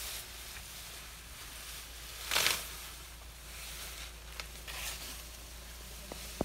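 Asian elephant feeding in tall grass: rustling and tearing of grass as its trunk pulls stems, with one louder swish lasting about half a second a little after two seconds in.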